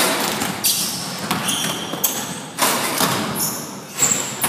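Basketball thumping on a hard gym floor several times, with short high sneaker squeaks between the bounces, echoing in the hall.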